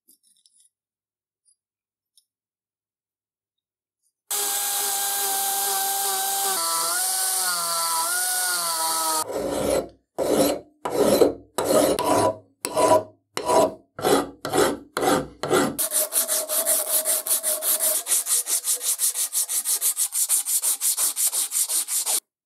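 A small power tool runs for about five seconds, its pitch dipping and wobbling. Then a hand file is drawn across the cast aluminium handle of a rivet hammer in about ten slow strokes, followed by fast, even rubbing strokes of an abrasive sanding pad on the aluminium.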